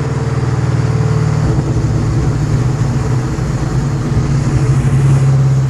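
Cammed, Whipple-supercharged 4.6-litre DOHC V8 of a 2003–04 Mustang SVT Cobra running steadily at low revs through its Borla ATAK exhaust, with an uneven, choppy lope that grows from about a second and a half in.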